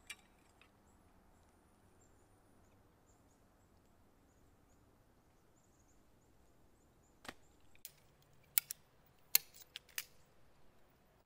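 Sharp clicks and knocks of a sectioned tent pole being unfolded and its segments snapped together. There is one click at the start, then a run of knocks in the last four seconds.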